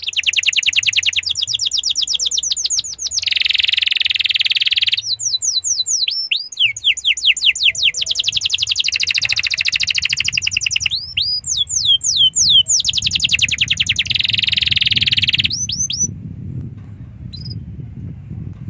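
Domestic canary in full song: long, loud phrases of rapid trills and fast rising and falling sweeps, one after another, stopping about sixteen seconds in. A low rumble runs underneath and grows louder near the end.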